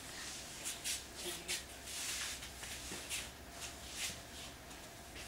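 Martial-arts belt and uniforms rustling in an irregular string of short, soft brushing sounds as a belt is wrapped around a student's waist and tied.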